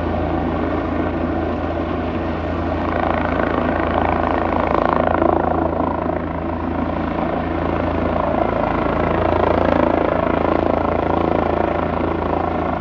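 Helicopter's rotor and turbine running steadily, growing a little louder twice.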